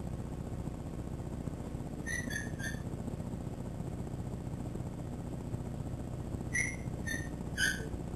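Newborn puppy squeaking: three short high squeaks about two seconds in and three more near the end, each dropping slightly in pitch, over a steady low hum.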